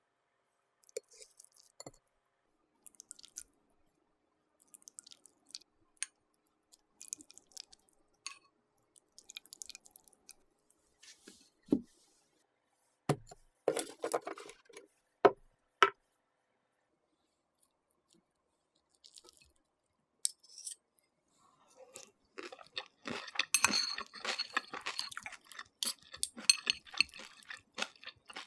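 Scattered taps and clinks of ceramic dishes and cutlery on a table, with a few louder knocks about halfway through. Near the end comes a dense run of quick clinks and scrapes as metal chopsticks and a spoon lift steamed napa cabbage and beef brisket from the dish.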